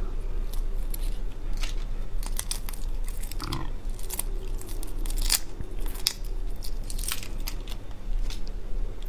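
Shell of a large cooked red prawn cracking and crackling as it is peeled apart by hand close to a clip-on microphone: a quick, irregular series of sharp cracks and clicks.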